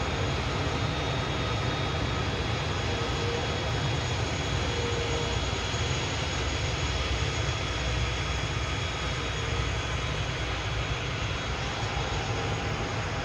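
Jet airliner engines running steadily: a constant low rumble with a faint high whine, no rise or fall.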